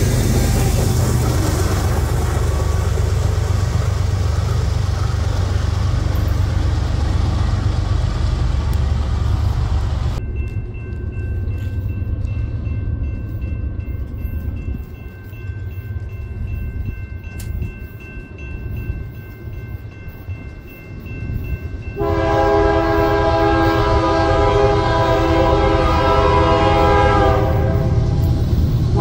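Freight train cars rolling past at speed, a steady rumble of wheels on rail. After a cut, a diesel locomotive's horn sounds faintly in the distance, then blows loud and long as it approaches. It breaks off briefly and sounds again just before the end.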